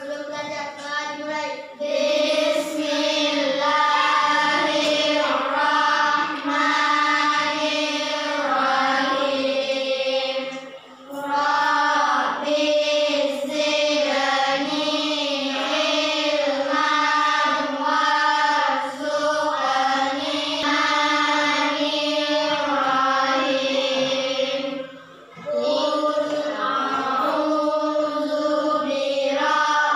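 A class of schoolchildren singing a song together in unison, with two short breaks, about eleven and twenty-five seconds in.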